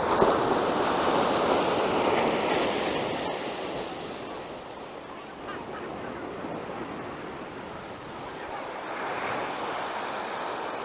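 Sea waves breaking and washing on the beach, louder over the first few seconds and then easing off, with wind on the microphone.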